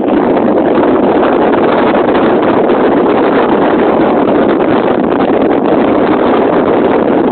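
Steady, loud rushing of wind buffeting the camera's microphone.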